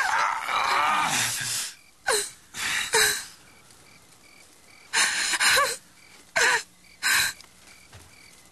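A woman crying: wailing for the first second and a half, then sobbing in short gasping breaths. Faint crickets chirp underneath.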